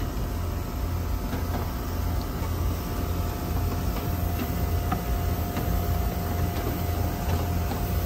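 Steady low rumble with a faint steady hum joining in about two and a half seconds in, and a few faint clicks.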